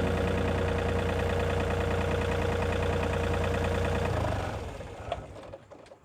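John Deere 35D compact excavator's diesel engine running steadily, then shut off about four seconds in, winding down to a stop. A couple of faint clicks follow.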